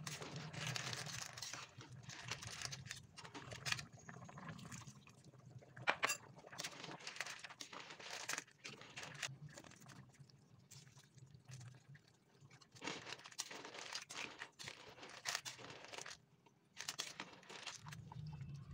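Seafood in thick Padang sauce boiling in a pan, bubbling and popping irregularly, with a sharp click about six seconds in.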